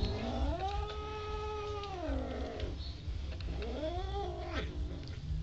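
Domestic cats yowling at each other in a tussle over food. One long yowl rises, holds and falls over about two seconds, then a shorter rising-and-falling yowl comes about three and a half seconds in. These are warning calls from cats guarding a shared piece of raw meat.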